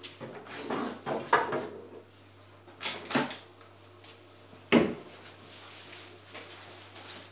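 A kitchen cupboard door being opened and shut, with soft knocks and shuffles from handling things inside, and one sharp knock about two-thirds of the way through.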